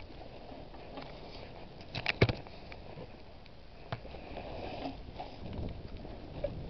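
Knocks and rustling of a handheld camera being jostled as its holder walks, with a quick cluster of sharp knocks about two seconds in and a single knock near four seconds.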